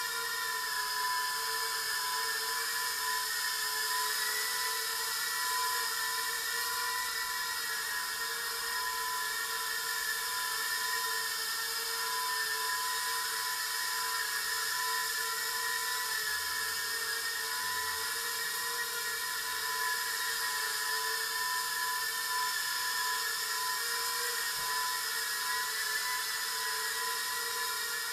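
Eachine Turbine QX70 micro FPV quadcopter in flight: a steady high-pitched whine from its small motors and propellers, the pitch wavering slightly up and down.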